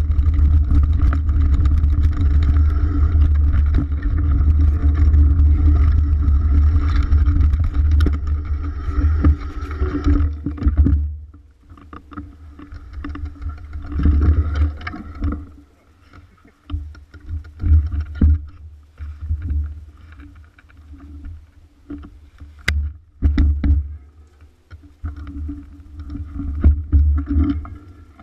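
Mountain bike riding fast down a dirt singletrack: steady wind and trail rumble on the bike-mounted camera's microphone. About eleven seconds in it drops away to a much quieter stretch of scattered knocks and rattles as the bike slows and works through brush.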